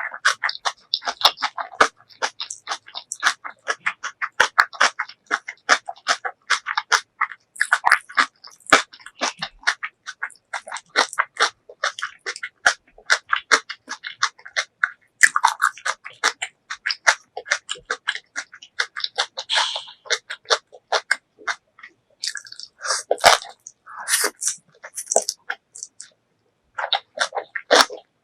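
Close-miked eating sounds of kimchi and spicy ramen noodles: rapid wet chewing and crunching with slurps, pausing briefly near the end.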